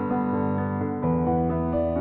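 Background music: soft keyboard chords, with sustained notes that change from chord to chord.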